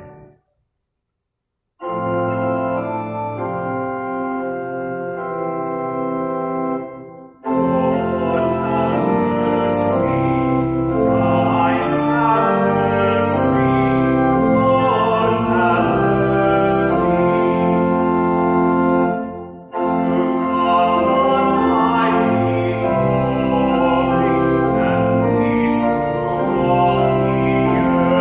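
Church organ playing held chords after about two seconds of silence. From about seven seconds in the music fills out and a man's voice sings with the organ, a sung part of the liturgy or a hymn.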